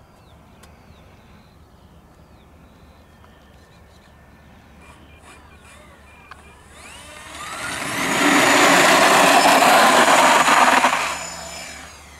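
Four electric motors and propellers of an RC C-130 Hercules model throttling up for the takeoff run. The whir rises over about a second and a half to a loud steady whine with a high note, holds for about three seconds, then fades quickly as the plane climbs away.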